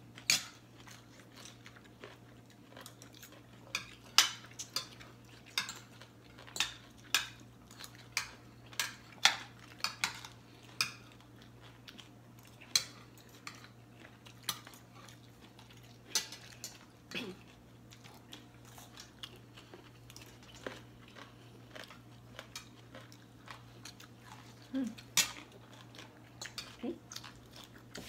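Metal spoons and forks clinking and scraping against ceramic plates while eating, in sharp irregular clicks every second or so, with some chewing between them.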